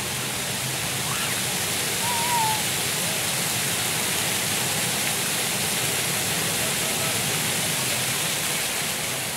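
Fountain jets splashing: a steady, dense hiss of falling water.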